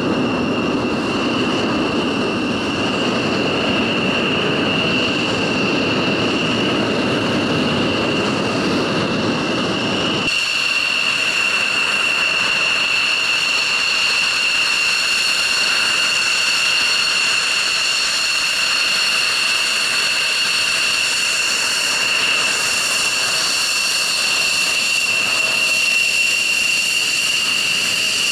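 F-16 fighter jets' turbofan engines running at taxi power: a steady high whine over a rushing rumble. About ten seconds in the rumble drops away abruptly, leaving a stronger whine with higher tones above it.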